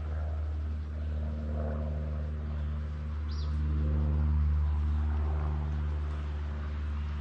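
Steady low engine-like drone, swelling slightly around the middle, with two brief high chirps from a bird about three seconds in and near the end.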